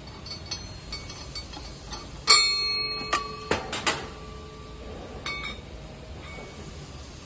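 Steel parts of a press's hopper and feed mechanism being handled: light clicks, then one loud ringing metal clank about two seconds in, a few sharp knocks after it, and another ringing tap near five seconds.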